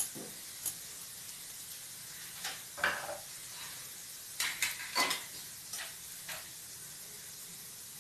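Sev made from gram flour (sanaga pindi) deep-frying in hot oil in a pan: a steady sizzle with scattered sharp crackles and pops, the oil still frothing before the batch is turned over.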